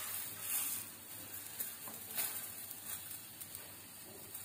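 Folded tortilla wrap sizzling softly on a hot ridged grill pan, with a few faint light clicks.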